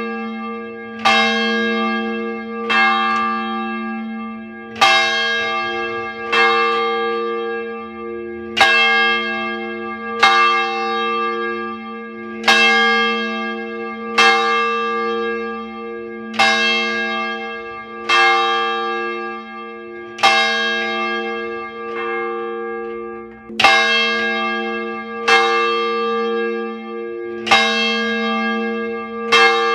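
A single church bell ringing steadily, struck about every two seconds. Each strike hangs on and rings into the next, all at the same pitch.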